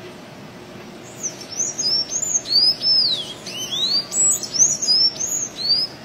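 A sanhaço tanager (Thraupis) singing: starting about a second in, a fast run of high, squeaky notes that arch up and down, over a steady low hiss.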